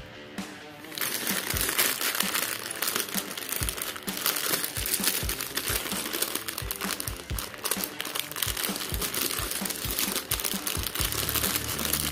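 Clear plastic bag full of LEGO pieces crinkling as it is squeezed and turned in the hands, the bricks shifting inside. It starts about a second in and carries on in a dense crackle.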